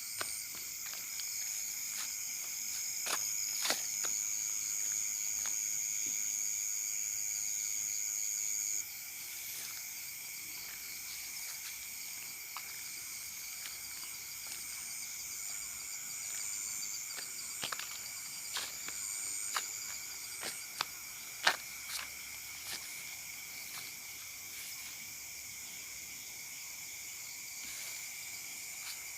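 Night insects such as crickets trilling steadily in several high-pitched bands; the loudest trill stops about nine seconds in. Scattered short clicks and knocks, one louder about two-thirds of the way through.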